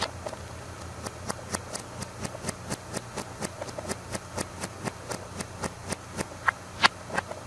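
A steady series of short clicks, about four a second, over a low steady hum, with a few louder, more widely spaced clicks near the end.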